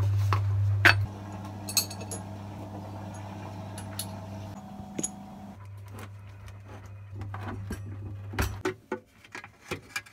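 A spanner clinking and tapping on the mounting bolts of a Raymarine Autohelm rotary autopilot drive as it is unbolted for removal, in scattered sharp clicks that come thicker near the end, over a steady low hum.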